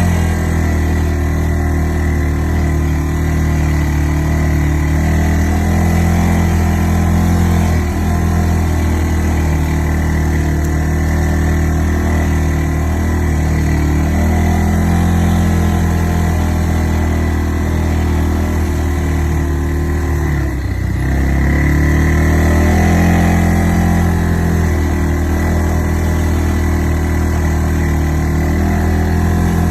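ATV engine running steadily while under way. About two-thirds of the way through, the engine speed drops briefly, then picks up again.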